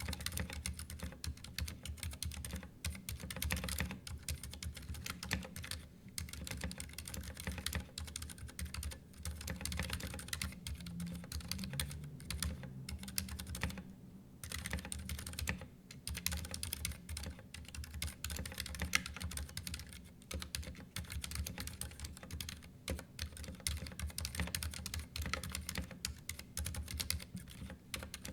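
Continuous typing on a Ducky One 2 Mini mechanical keyboard: a dense run of rapid key clicks and clacks, with short pauses about six, fourteen and sixteen seconds in.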